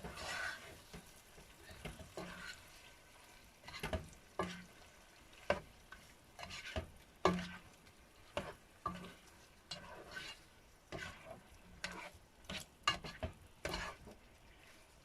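Marinated pork cubes frying in a pan while being stirred: a steady sizzle under short scrapes and knocks of a utensil against the pan, coming irregularly about once a second.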